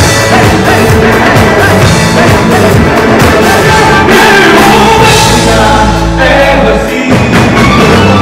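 Live pop-rock band playing loudly: a male lead vocalist sings into a microphone over electric guitar, bass guitar and drum kit.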